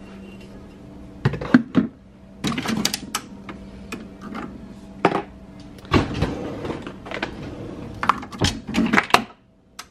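Clicks and knocks from loading a Keurig single-serve coffee maker: a ceramic mug set down on the drip tray, and the brewer's lid and pod holder worked as a K-cup pod goes in. The clicks and knocks come in several short clusters.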